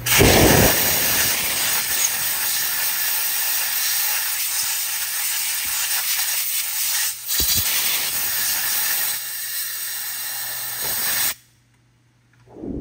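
Compressed-air blow gun hissing steadily into a drilled bolt hole in a Subaru EJ25 aluminium engine block, blowing out the metal chips left from drilling. The hiss breaks briefly once partway through and cuts off suddenly about eleven seconds in.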